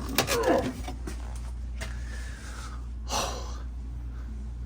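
Steady low hum of the refrigerator, still plugged in and running, with clicks from handling parts inside the freezer in the first second and a short sharp breath a little after three seconds.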